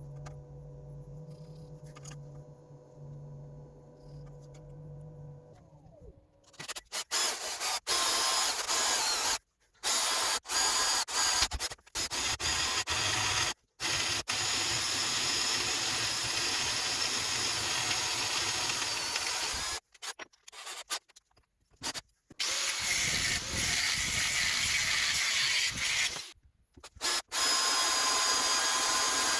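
Belt grinder made from a 550 W AEG bench grinder: the motor hums steadily, then from about six seconds the running belt grinds against a workpiece with a loud, rough scraping. The scraping stops abruptly several times.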